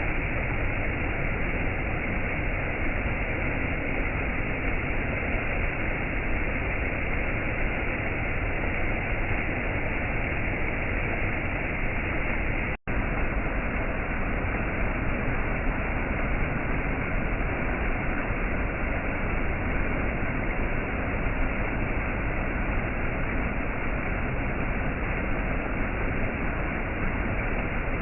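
Waterfall: a steady rushing of falling water, even and unbroken, except that it cuts out for an instant about thirteen seconds in.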